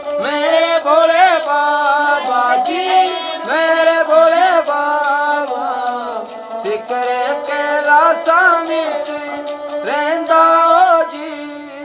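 Ravanahatha, the Rajasthani bowed folk fiddle, playing an instrumental passage: a melody with sliding notes over a steady drone, with the bells on its bow jingling. It dies away near the end.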